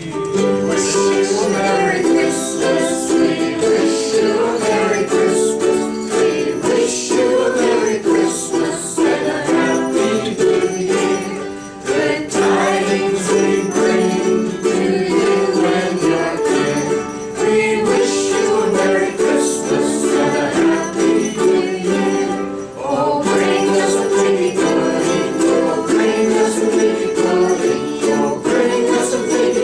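A group of ukuleles strumming a Christmas tune together, with jingle bells shaking along.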